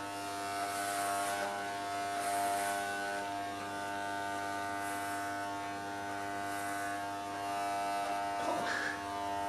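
Corded electric hair clippers buzzing steadily as they shave a man's head down to the scalp.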